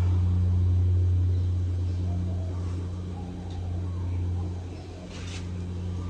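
Casablanca Delta II ceiling fan with a Samsung K55 motor running with four blades: a steady low hum that swells and fades slowly. A brief hiss about five seconds in.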